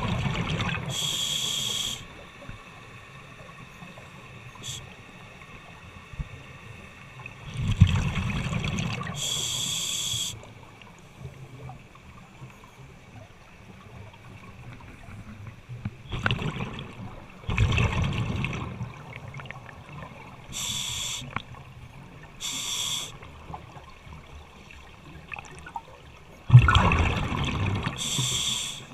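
Scuba diver breathing through a regulator underwater: bubbling, rushing exhales lasting one to three seconds come four times, with short sharp hisses of the regulator on the inhales in between.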